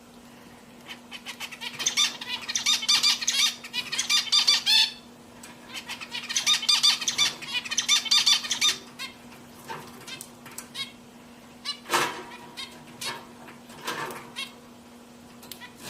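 Pet finches chattering in two long bursts of rapid, high calls, followed by scattered short calls and clicks, over a steady low hum.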